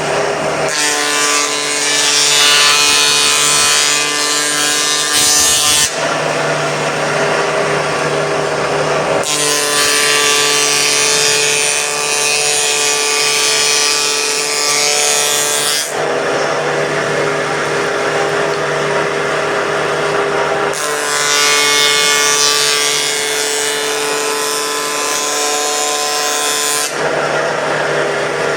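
Power tool motor running steadily with a whine, cutting into wood in three long passes of several seconds each, separated by shorter stretches of the motor running free.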